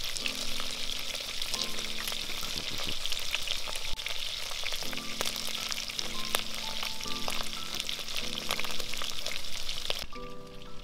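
Fish cooking in a pot over an open wood fire: a dense sizzle full of fine crackles that cuts off abruptly near the end. Soft background music plays underneath.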